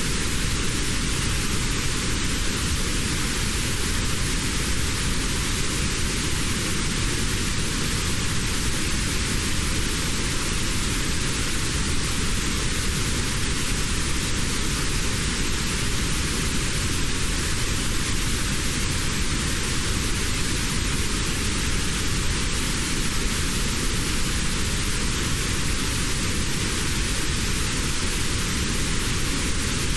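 Steady white noise with a narrow band cut out around 700 Hz. This is notched noise of the kind played for tinnitus relief.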